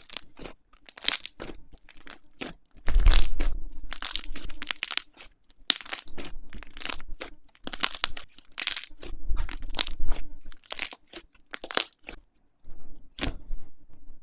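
Slime being squeezed and pressed by hand, giving irregular bursts of crunchy crackling and popping with short pauses between them.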